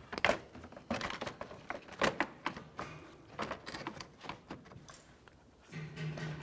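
Irregular hard plastic knocks, clicks and rattles as a replacement active grille shutter assembly for a Nissan Altima is worked up into position behind the front bumper cover, its plastic frame bumping against the surrounding panels.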